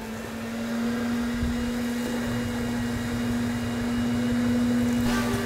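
Force II cellulose insulation blowing machine running, with a steady hum that comes on right at the beginning over the rush of air and cellulose being blown through the hose into a wall cavity.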